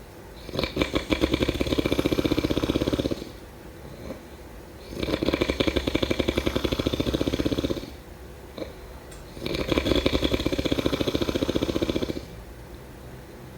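A person snoring in a slow, regular rhythm: three long, rattling snores, each about three seconds, with quieter breathing gaps between them.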